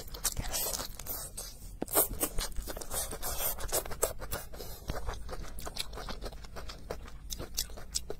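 Close-miked chewing of a napa cabbage leaf: many quick, irregular crunches and wet mouth clicks.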